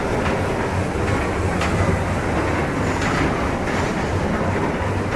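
Small electric kiddie train ride running around its circular track: a steady hum and rumble from the motor and wheels on the rails, with a few faint clicks.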